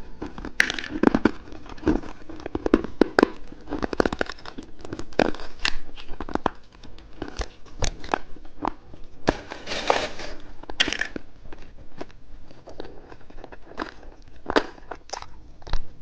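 Plastic candy wrappers crinkling and being torn open, with sharp clicks and taps of packaging being handled.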